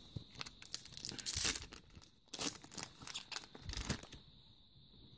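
Foil wrapper of a Select Footy Stars trading-card pack being torn open and crinkled by hand in several quick rips, loudest about a second and a half in, stopping about four seconds in.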